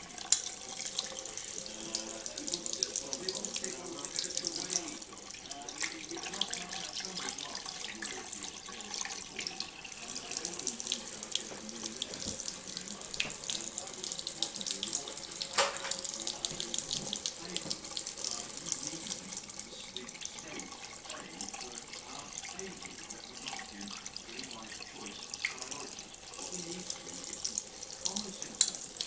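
LED waterfall faucet running steadily, its wide sheet of water splashing into a sink basin.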